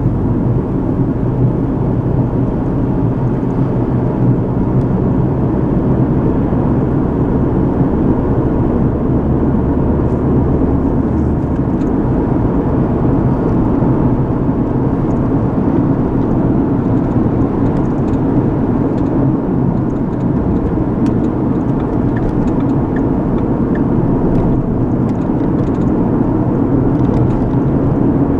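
Steady road and engine noise of a moving car heard from inside the cabin, a dense low rumble of tyres and motor. A deeper drone underneath drops away about twelve seconds in.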